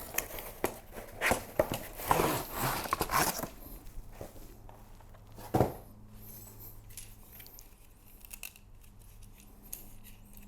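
Rustling and crinkling as the cart's fabric side skirt is unpacked and handled for about the first three seconds. A single knock comes about halfway through, then a few faint clicks over a low steady hum.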